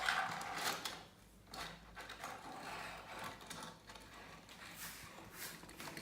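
Plastic toy vehicles and track pieces being handled, giving scattered light clicks and rattles, a little louder at the start.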